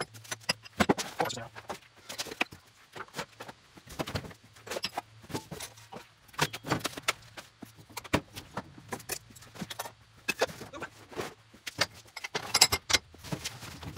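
Metal hand tools and loose parts clinking and clattering as they are picked up off a steel toolbox top and set down, with many irregular clanks and rattles.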